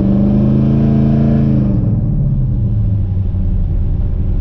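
The S10's swapped-in 5.3 LS V8 is pulling on a test drive. Its pitch rises slightly, then drops sharply about two seconds in, and it runs on at a lower pitch. The engine has a misfire that new plug wires, O2 sensors and cleaned grounds have not cured.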